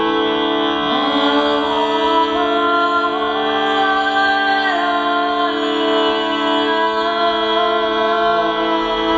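Meditative music: a woman's voice sings a slow wordless chant over a steady drone of many sustained ringing tones. The voice slides upward about a second in.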